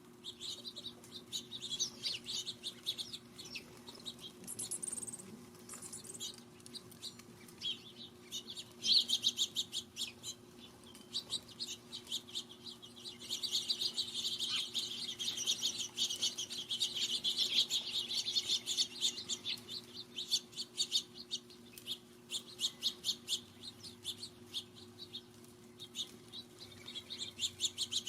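Small songbirds chirping and chattering in rapid, overlapping notes, thickest in the middle stretch. A faint steady low hum runs underneath.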